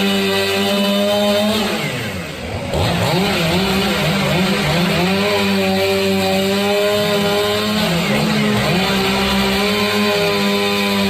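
Gas chainsaw running at high revs, its pitch dropping sharply about two seconds in and climbing back, with a smaller dip near eight seconds.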